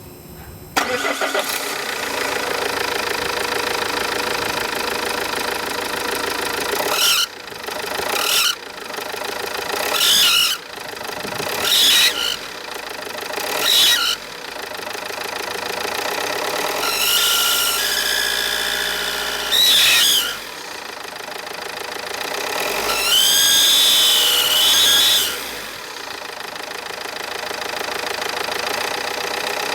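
Opel Zafira B's Z19DTH 1.9 turbodiesel starting about a second in, idling, then revved in several short blips and two longer holds. A high whistle rises and falls with the revs, the front-end whistle the owner reports together with exhaust gases escaping.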